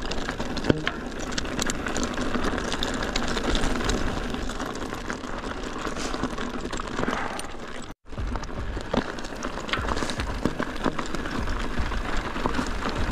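Guerrilla Gravity Smash mountain bike rolling over loose gravel and shale: tyres crunching with a dense patter of small clicks and rattles. The sound cuts out for an instant about eight seconds in.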